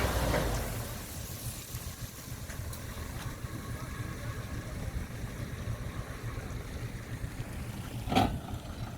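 A vehicle's engine running with a steady low rumble that drops in level about a second in. A single short, sharp knock stands out near the end.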